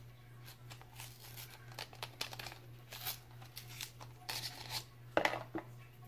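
An eyeliner pencil's packaging being handled and opened: a run of small rustles and clicks, denser and louder about four to five and a half seconds in.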